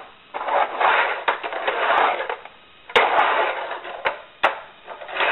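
Tech Deck fingerboard on regular, non-bearing wheels rolling back and forth on a wooden mini ramp, a rough rolling rumble that surges with each run, with sharp clacks as the board strikes the ramp. Kind of loud, which goes with the plain wheels; bearing wheels would likely run quieter.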